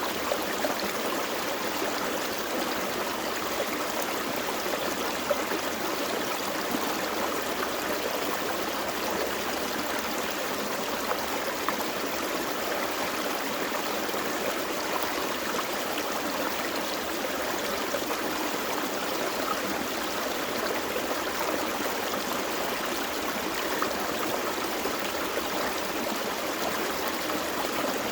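Gentle forest stream flowing over rocks: a steady rushing, with small splashes and gurgles now and then.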